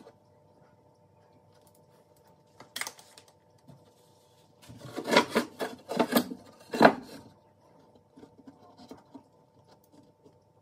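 Plywood panels scraping and knocking against each other as they are pushed into place by hand. There is one short scrape about three seconds in, then a busier run of scrapes and knocks lasting about two seconds past the middle.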